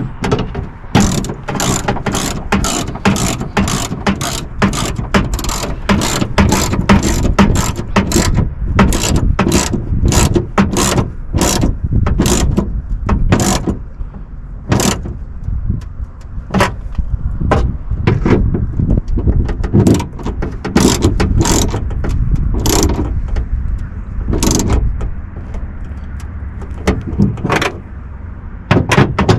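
Hand ratchet wrench clicking in runs as the bolts holding a rear wing to the trunk lid are tightened. The clicks come thick and fast in the first half and more spaced out later.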